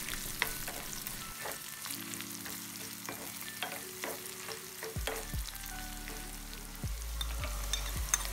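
Chopped onion, garlic, dried chillies and dried sprats sizzling in hot coconut oil in a metal wok as a tempering is fried. A wooden spoon stirs and scrapes, knocking irregularly against the pan.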